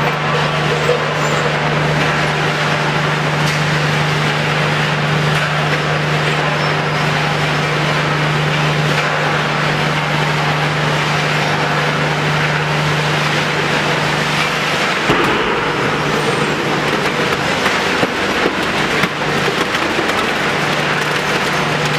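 Scrap metal shredding plant machinery running: a steady motor hum under a dense, continuous grinding noise. The hum drops out about fifteen seconds in and returns near the end, with a few knocks between.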